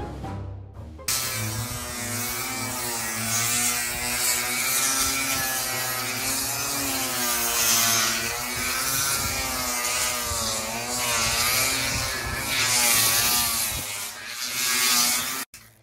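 After a second of music, a handheld electric grinder or sander runs continuously against the fiberglass cabin roof, its motor pitch wavering up and down as it is pressed into the surface. It is grinding off failed gel coat down to the honeycomb core. The tool cuts off abruptly just before the end.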